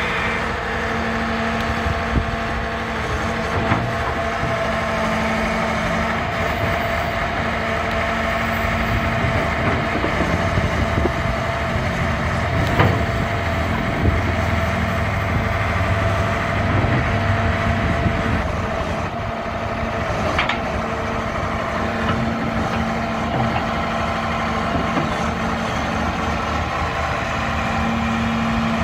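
Liebherr 932 crawler excavator's diesel engine running steadily while the hydraulic boom and arm are worked. The engine note swells under load through the middle, and a few short sharp knocks come through.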